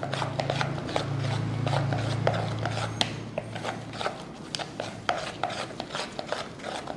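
Chopsticks stirring a thick minced-shrimp and cornstarch batter in a plastic bowl: quick irregular taps and scrapes against the bowl, several a second.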